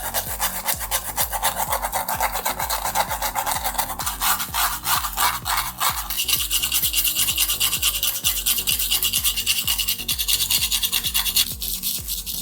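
Rapid back-and-forth abrasive rubbing strokes, several a second, on the metal body of a die-cast model car. The strokes take on a higher, sharper tone about six seconds in and soften again near the end.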